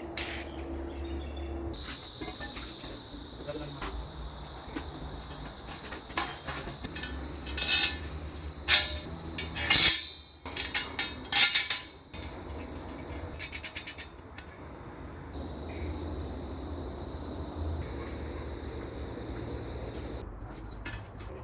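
Metal pieces clinking and clattering, with a run of sharp, loud knocks in the middle, over a steady high-pitched hum.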